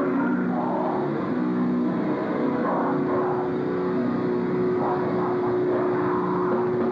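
Loud distorted live rock music from a band: heavy low chords changing every second or so, with one high note held through the second half.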